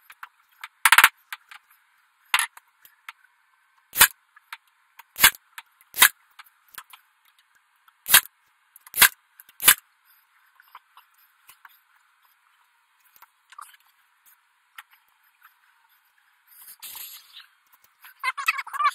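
Sharp knocks from hand work on wood in a workshop: about eight single strikes at uneven intervals over the first ten seconds. Near the end comes a short scraping rustle, then a brief high wavering whine.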